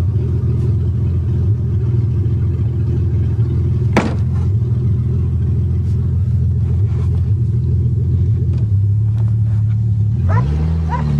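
1982 Toyota Cressida's engine running steadily under way, with road rumble, heard from inside the car. One sharp click about four seconds in. Near the end the engine note shifts and then rises as the car picks up speed.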